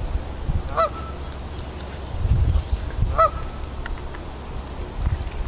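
Canada goose honking, two short calls about two seconds apart.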